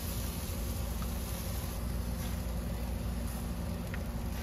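Steady low rumble with a light hiss over it and a few faint ticks.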